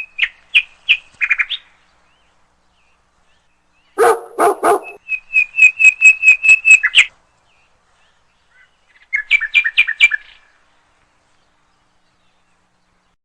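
Pet animal calls in separate bursts with silence between. There are short high squeaks and chirps near the start, three short barks about four seconds in, then a quick run of about eight chirps a second that grows louder. Another burst of chirps comes about nine seconds in.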